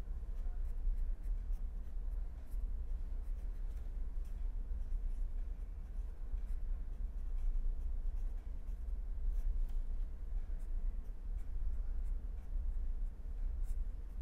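Marker pen writing on paper: a run of short scratchy strokes as equation symbols are drawn, over a steady low hum.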